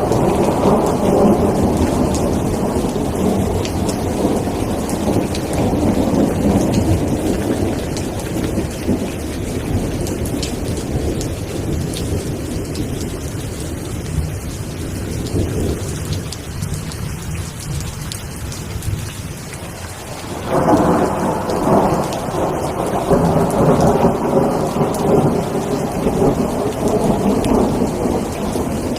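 Steady rain falling with rolling thunder. The rumble dies down past the middle, and a new peal of thunder breaks in suddenly about two-thirds of the way through.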